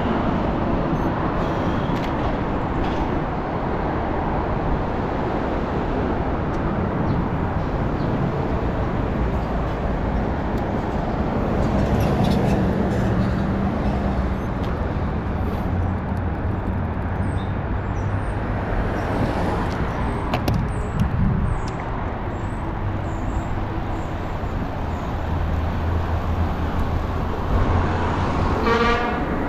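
City street traffic heard from a moving bicycle: a steady rush of road noise, with car and bus engines passing and fading.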